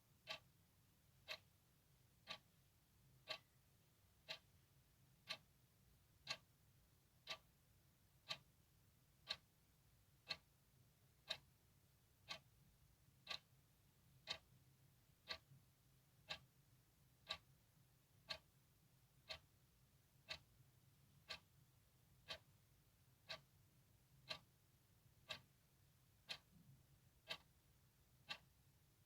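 Clock ticking steadily, one sharp, quiet tick about every second.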